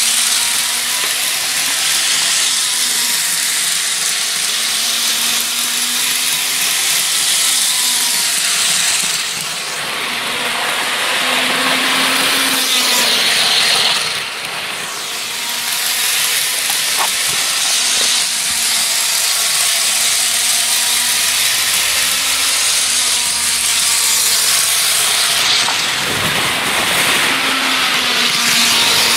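Bachmann HO scale model train, a Canadian National diesel locomotive pulling freight cars, running fast around an oval of track: a steady whir of the small electric motor and wheels on the rails. The sound dips briefly twice, about ten and fifteen seconds in.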